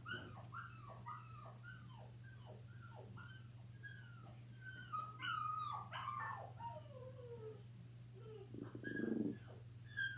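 Recorded dog whimpering played through a TV: short high cries falling in pitch, about two a second, then longer falling whines around the middle. A louder, lower burst comes about nine seconds in, over a steady low hum.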